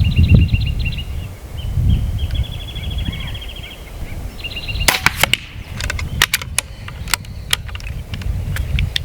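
Benjamin Marauder .22 PCP air pistol fired once about five seconds in, a sharp crack followed by a quick run of clicks from handling the gun. Low wind rumble on the microphone and repeated high chirping trills run underneath.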